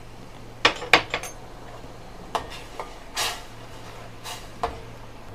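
A metal spoon clinking and scraping against a stainless steel saucepan, with irregular sharp clinks and one longer scrape in the middle, as cornstarch slurry is stirred into simmering palm sugar syrup to thicken it.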